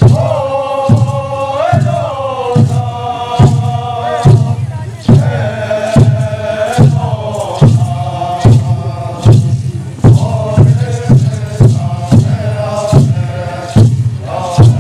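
Men's chorus chanting in unison, with a double-headed hand drum beating a steady stroke a little faster than once a second.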